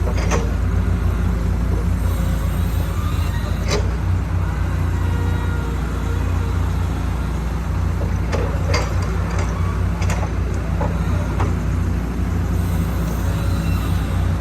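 Diesel engine of a JCB backhoe loader running steadily at a low, even drone, with a few short sharp knocks scattered through.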